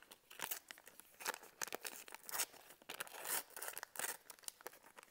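Wrapper crinkling and tearing as a stick of butter is peeled open by hand: irregular rustles and crackles.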